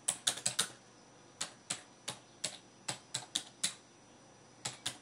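Keys being typed on a computer keyboard: single sharp clicks, irregularly spaced, coming in small bunches with pauses of up to a second between them.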